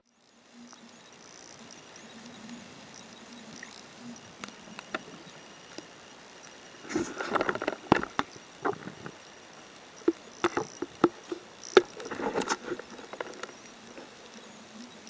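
Underwater ambience recorded through a camera's waterproof housing: a steady hiss, with scattered sharp clicks and clusters of crackling through the middle and latter part.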